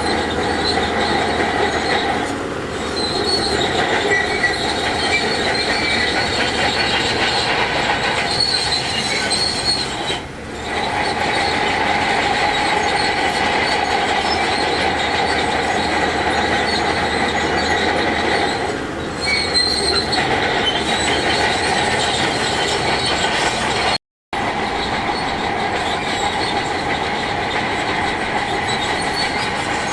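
Crawler bulldozer working, its diesel engine running under load with a continuous metallic squeal and clatter from the steel tracks. The sound cuts out for a moment about three quarters of the way through.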